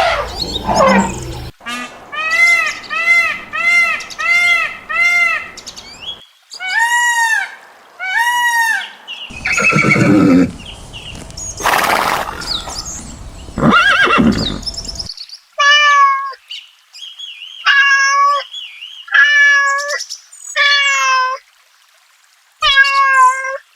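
A run of animal calls from several different animals, one after another: first a quick series of short arched notes, then two longer calls, a rougher noisier call in the middle, and a series of short repeated calls near the end.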